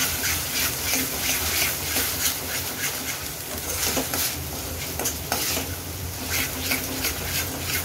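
Metal spatula scraping and stirring onion-garlic-ginger paste that sizzles in hot oil in a stainless steel pan, in quick repeated strokes. The paste is being fried until it browns and releases its oil.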